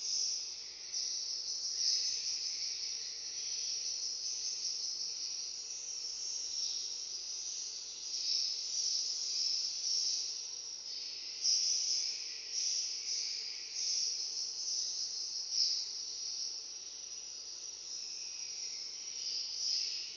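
Dense, continuous high-pitched twittering of many swiftlets, swelling and fading as the flock moves.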